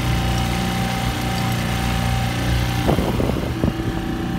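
The trimaran's outboard motor running steadily at cruising speed. About three seconds in, a cluster of short knocks and rustles lies over the engine.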